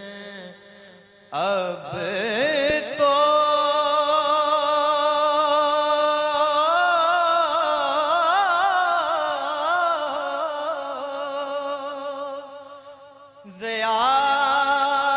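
A man singing a naat in long, held, wavering melismatic notes. One long phrase runs for about ten seconds, then a short break, and a new phrase starts near the end.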